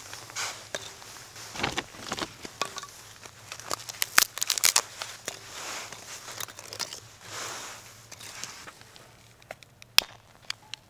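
Thin split kindling sticks being laid into a round fire pan: light, irregular wooden clicks and clatters as the sticks knock against each other and the pan, with short soft rustles between them. The clicks come thickest around the middle and one sharp click comes near the end.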